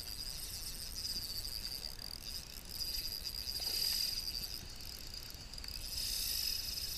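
Steady high-pitched insect chirring, swelling louder twice: around four seconds in and again near the end.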